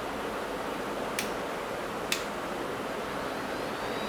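Quick 857DW hot-air rework station blowing with a steady hiss, with two light clicks about a second apart.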